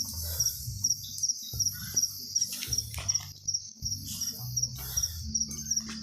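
Crickets chirping in a steady, even rhythm of short paired pulses, several a second, over a low rumble.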